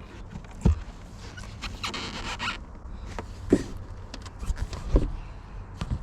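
Handling of a magnetic-base LED light bar against a van's metal body: a few separate sharp knocks, about a second apart or more, and a short scraping rustle about two seconds in.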